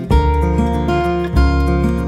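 Background music led by strummed acoustic guitar, its chords changing about every second and a quarter.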